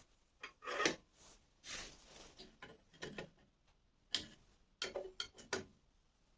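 Irregular small clicks and knocks of hand adjustment on a Makita LB1200F band saw's blade-guide bearings, as screws are loosened and the bearings slid toward the blade, with a quick run of clicks about five seconds in and a short rustle near two seconds.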